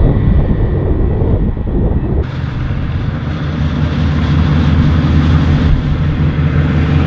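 Combine harvester's diesel engine running steadily at working speed as it harvests, an even hum; about two seconds in, a steady hiss of the machine joins it and stays.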